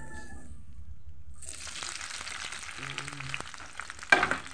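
Chopped tomatoes, onions and bell peppers sizzling in hot oil in a frying pan, a dense crackle of fine pops that comes in about a second and a half in. Near the end there is one sharp knock.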